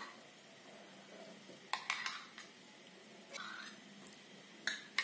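A few faint clicks and taps of a metal spoon against a glass jar and a stainless-steel mixing bowl as sour cream is scooped out, in a quiet room.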